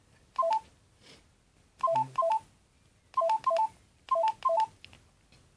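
LG GS101 mobile phone keypad beeping as its buttons are pressed, each press a short three-note electronic tone with a click. Seven presses: one alone, then three quick pairs.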